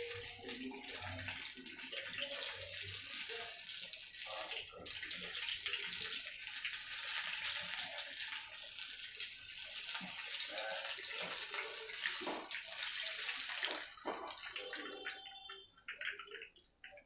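Mushroom pakodas deep-frying in hot oil with a dense, steady sizzle, stirred with a spoon that scrapes and taps against the kadai. The sizzle dies down sharply near the end as the fried pakodas are lifted out of the oil with a wire skimmer.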